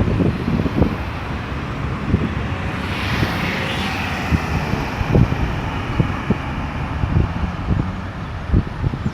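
Road traffic running steadily around a busy roundabout, with one vehicle passing close about three seconds in. Wind buffets the microphone throughout in uneven gusts.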